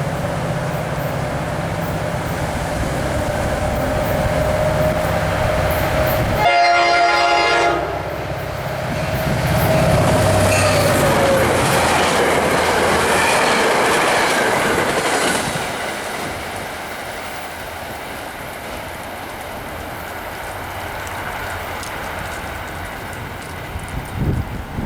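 NJ Transit diesel passenger train, led by a GP40PH-2B locomotive, passing at speed. It sounds a short horn blast about six seconds in, then the cars rush by with wheel clatter, and the noise fades off after about sixteen seconds.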